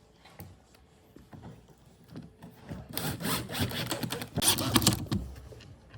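Wooden parts being handled, knocking and rubbing against each other, with a few sharper knocks about four to five seconds in.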